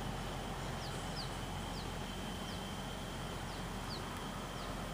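A small bird chirping repeatedly: short, quick, downward chirps every half second or so, over steady outdoor background noise.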